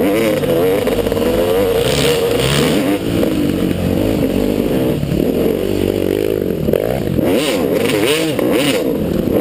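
Motocross motorcycle engines revving hard, the pitch rising and falling over and over, in quick swells near the end.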